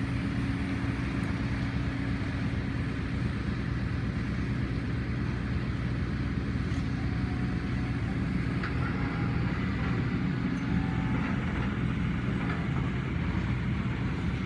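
Kobelco SK140-8 excavator's diesel engine running steadily.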